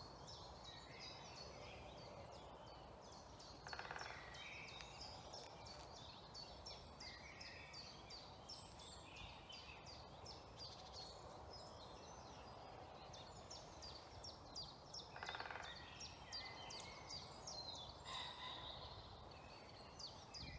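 Faint woodland dawn chorus: many songbirds singing overlapping high phrases. Twice, about four seconds in and again near fifteen seconds, comes a short burst of rapid knocking, a woodpecker drumming to mark its territory.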